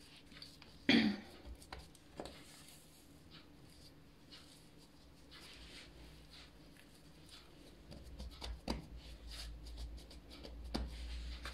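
Soft rubbing, rustling and light taps of hands folding and pressing a sheet of pastry dough on a granite countertop. A short vocal sound comes about a second in, and a low rumble with a few clicks joins near the end as the folded dough is pressed down.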